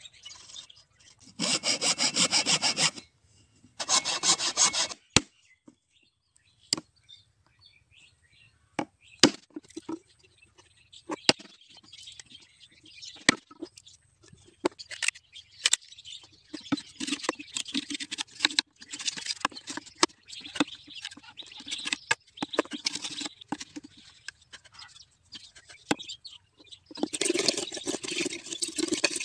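A thin blade sawing across a green bamboo stick in two short, loud stretches of rapid strokes near the start, then scattered knocks and a longer stretch of the blade scraping and shaving the bamboo, loud again near the end.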